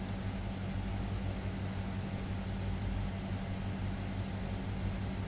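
Steady low hum with a constant hiss behind it.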